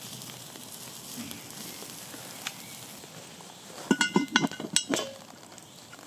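Cast-iron Dutch oven lid being lifted off with a metal lid lifter: a quick run of sharp metallic clanks and clinks about four seconds in. Before it there is only a faint steady hiss.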